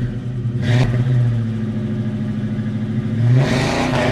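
Car engine running steadily, with a short rush about a second in and a rev that rises in pitch near the end.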